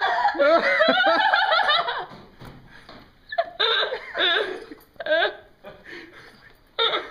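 A person laughing with a honking, donkey-like laugh. The first two seconds are one long, loud, wavering bray, followed by a string of shorter gasping laugh bursts.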